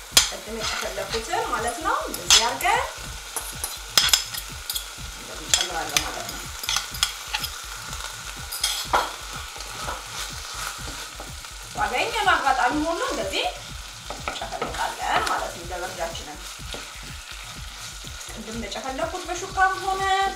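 Wooden spoon stirring chunks of eggplant in a thick sauce in a nonstick frying pan, knocking and scraping against the pan with many sharp clicks, while the food sizzles.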